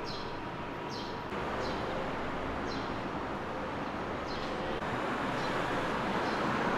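City street ambience: a steady hum of distant traffic with a small bird giving short, high chirps about once a second.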